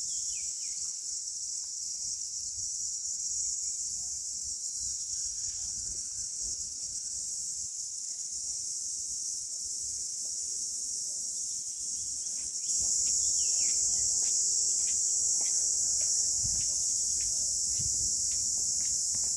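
Cicadas buzzing steadily in the trees, a continuous high-pitched drone that grows louder about thirteen seconds in.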